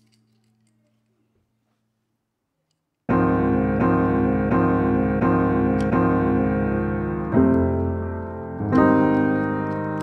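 Near silence for about three seconds, then background piano music starts suddenly, playing repeated chords in an even beat that shift to new chords twice near the end.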